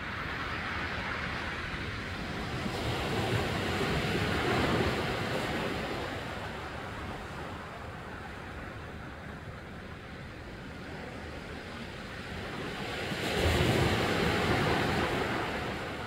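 Sea waves washing in on a rocky shore: a steady hiss of surf that swells louder twice, about four seconds in and again near the end.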